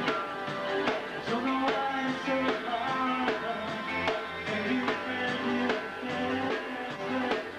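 Rock band playing live: electric guitars over bass and a drum kit keeping a steady beat.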